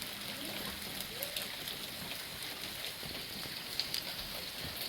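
Steady rain mixed with hail: an even hiss of falling water with many small, sharp ticks of hailstones striking.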